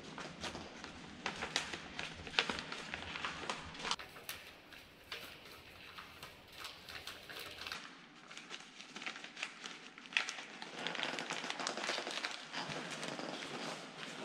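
Paper rustling and crinkling as a sheet is handled in gloved hands: an uneven run of small crackles and clicks, busier near the end.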